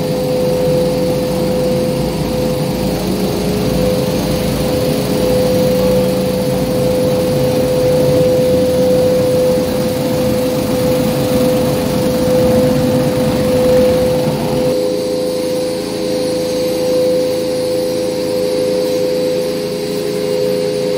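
Motorised rotary-brush carpet-washing machine running steadily, a constant motor whine over a rumbling scrub. About fifteen seconds in the low rumble drops away and the whine carries on.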